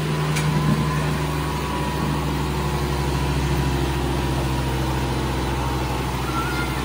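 Diesel tractor engine running hard under full load in a tug-of-war, held at a steady pitch while the front wheels are lifted off the ground.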